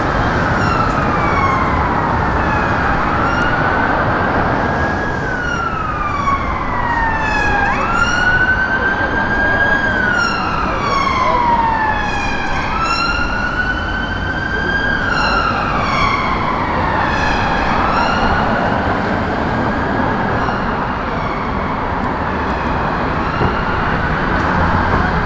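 Emergency vehicle siren in a slow wail, its pitch rising and falling over a few seconds each cycle and fading out near the end, over steady street traffic.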